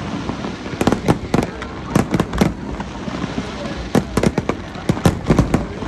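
Fireworks going off: volleys of sharp bangs in quick clusters, with a short lull around the middle.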